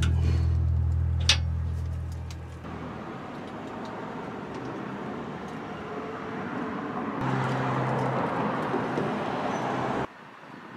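A steady low machine hum with a few sharp metallic clinks for the first couple of seconds, then the noise of road traffic, which swells about seven seconds in and cuts off abruptly near the end.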